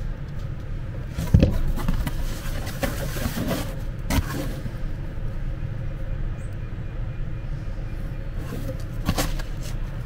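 Cardboard box and pleated filter being handled: scattered knocks and rustles of cardboard, the loudest a thump about a second and a half in, over a steady low hum.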